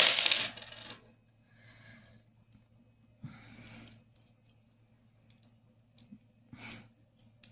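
Small metal clicks and clinks as the security screw is set back into the steering lock assembly, with soft breathing-like rustles between them.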